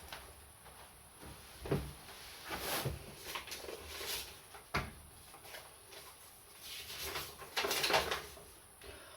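Paper rustling and handling as a letter is opened and unfolded, in several bouts, with a few sharp clicks or knocks between them.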